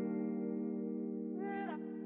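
Background music: a sustained chord ringing out and slowly fading, with a short higher note that bends briefly about one and a half seconds in.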